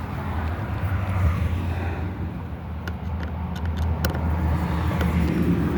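A motor vehicle engine running with a steady low hum, with a few light clicks about three to four seconds in.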